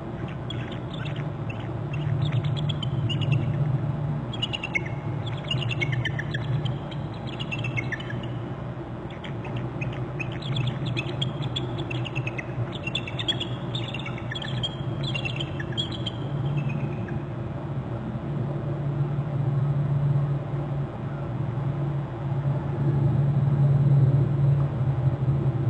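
Bald eagles trilling: bouts of high, quickly falling piping notes that stop about two-thirds of the way through, over a steady low hum.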